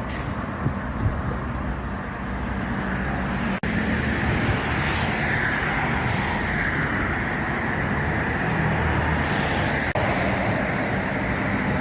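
Steady vehicle engine and road traffic noise, with a low hum, briefly cut out twice.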